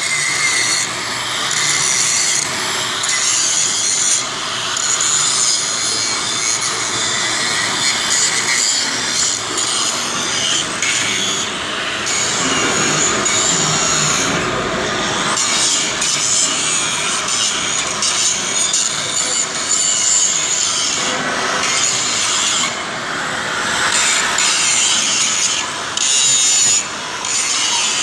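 Continuous harsh, hissing metalwork noise on the steel bulldozer blade, pausing briefly a few times.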